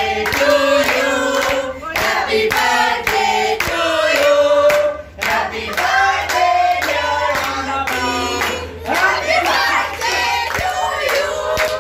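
A group of women and children singing together with hand clapping, a birthday song, with a brief pause about five seconds in.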